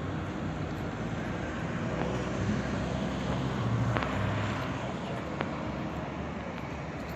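Steady road-traffic noise with a car engine passing, a little louder around the middle.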